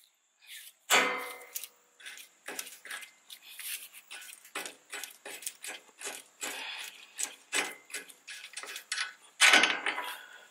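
Irregular metallic clinks and clicks of hand work on the front strut as the leveling spacer and its nuts are fitted by hand. The loudest clink comes about a second in, with a quick cluster near the end.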